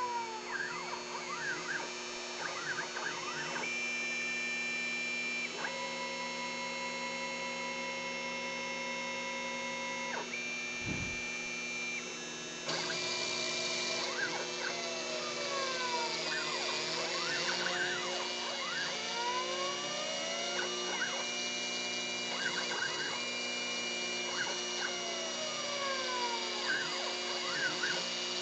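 Stepper motors of a homebuilt three-axis CNC router driving its axes: whining tones that sweep up and down in pitch as the axes speed up and slow down, and longer steady tones on constant-speed moves, over a steady hum. From about halfway a higher hiss joins in and the whole gets a little louder.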